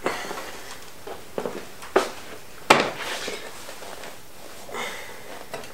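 A scoped .223 rifle being lowered into a foam cutout in a hard plastic rifle case and pressed into place: several sharp knocks and clicks as it meets the case and foam, the loudest nearly three seconds in, with scraping and rustling between.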